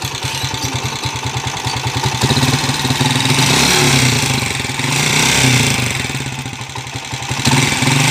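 Honda TMX 155's single-cylinder four-stroke engine running, first at idle, then revved up and held, easing off and revved again near the end. This is the engine before its overhaul, making the noisy, clacking 'lato-lato sound' (like a clacker toy) that marks a worn, knocking engine.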